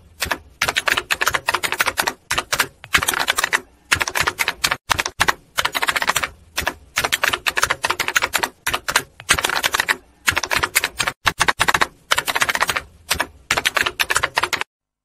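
Typewriter typing sound effect: rapid key clacks in runs with short pauses between them, stopping near the end.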